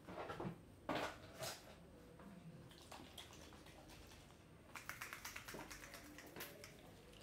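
Soft handling noises on a work table: a few light rustles and taps at the start, then a quick run of small clicks about five seconds in.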